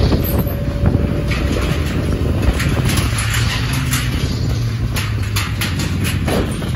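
Motorcycle engine running steadily at low speed as its tyres roll over a steel-grating bridge deck, with a handful of sharp rattles and clicks scattered through.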